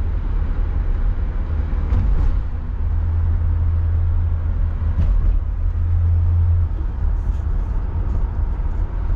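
A 1966 Ford Galaxie 500's 352 V8 cruising, heard from inside the car as a steady low engine rumble mixed with road noise. There are a few light clicks about two and five seconds in, and the deepest part of the rumble eases a little about two-thirds of the way through.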